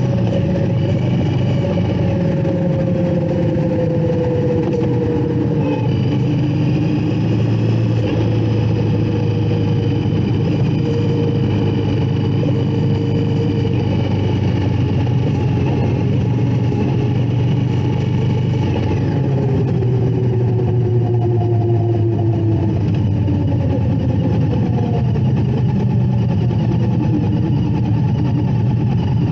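Indian Scout Bobber's V-twin engine running steadily at road speed, mixed with wind and road noise. The engine note falls twice as the bike eases off.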